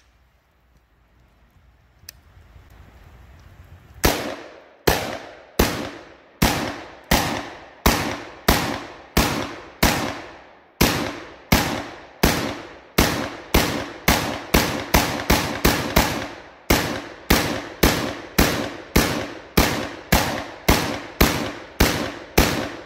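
Springfield Armory Saint Victor 7.5-inch AR pistol in 5.56 NATO/.223 firing semi-automatic: a steady string of about thirty single shots, a little under two a second, each followed by a short echo. The shooting starts about four seconds in, after a quiet pause.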